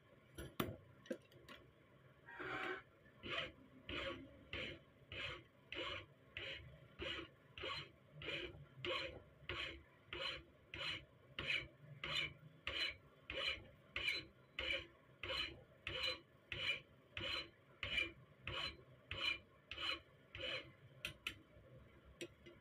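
Flat hand file rasping over a small steel part clamped in a bench vise, in even back-and-forth strokes about one and a half a second. A few light clicks come before the filing starts about two seconds in, and the strokes stop shortly before the end.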